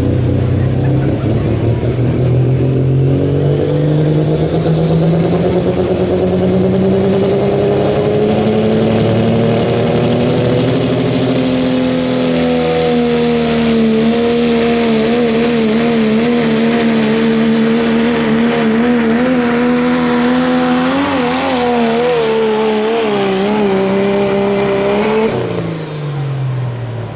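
A pulling vehicle's engine running hard at full power. Its pitch climbs steadily for about twelve seconds, then holds high with a wavering, and falls away sharply near the end.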